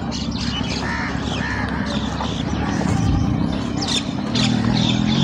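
Birds calling, with short chirps scattered through, over a steady low rumble.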